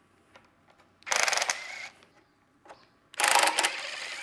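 Cordless impact wrench hammering as it undoes the oil sump bolts on a Toyota 2T engine, in two short bursts: one about a second in, the other near the end.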